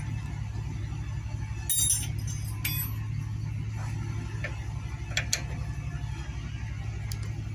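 Metal tools and engine parts clinking and clattering as a motorcycle engine is taken apart: a short burst of clatter about two seconds in, then scattered single clinks. A steady low hum runs underneath.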